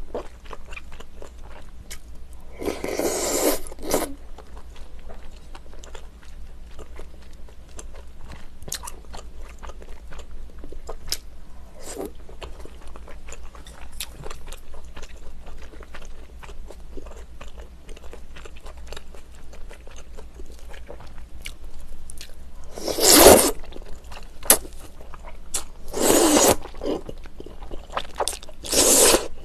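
Close-miked chewing of rice cake soup, with many small wet mouth and utensil clicks, and four loud slurps of broth about a second each: one about three seconds in and three in the last seven seconds, the last sipped from a small metal bowl.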